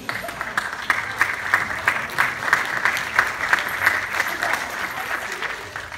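Audience applauding: many hands clapping in a dense patter that starts suddenly, swells, and thins out near the end.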